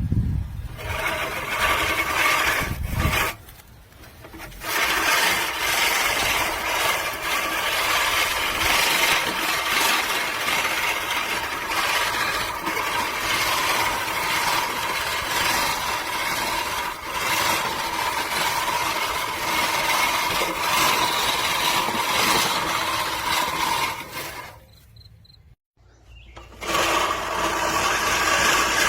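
VEVOR 16-inch five-blade manual push reel mower cutting grass: the spinning reel gives a steady whirring rasp against the bedknife. It stops briefly about three seconds in and again for a couple of seconds near the end.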